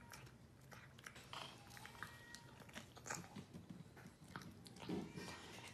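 A cat crunching dry kibble, with faint, irregular bites and chewing.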